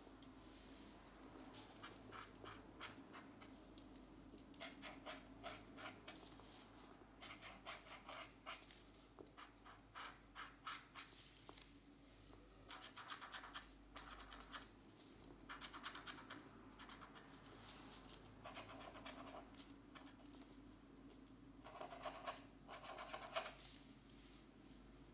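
Felt-tip markers scratching on colouring-book paper in quick back-and-forth colouring strokes. The strokes come in short bursts of one to two seconds with pauses between them, and the sound is faint.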